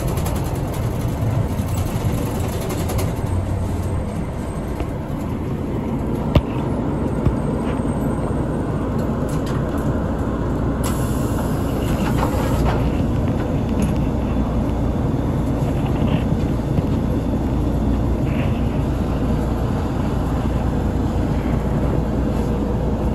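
Engine and road noise of a route bus heard from inside the cabin, slowing and coming to a stop, then running on steadily while it stands. There is a single sharp click a little after six seconds and a brief hiss about eleven seconds in.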